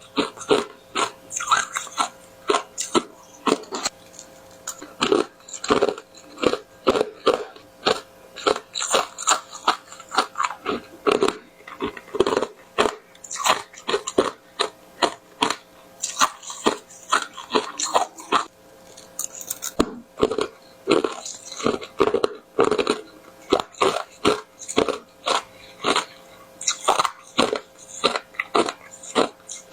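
Close-miked mouth biting and chewing large, hard, crunchy pieces of tartary buckwheat: a run of sharp, crisp crunches, several a second, with short pauses between bites.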